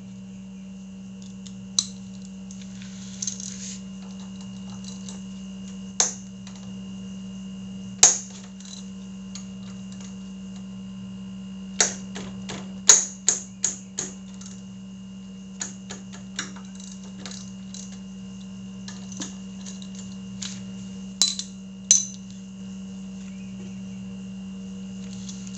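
Scattered sharp metallic clicks and clinks of a 12 mm wrench being fitted to and working two bolts on a motorcycle's front brake caliper, with a few quick runs of clicks near the middle. A steady electrical hum underneath.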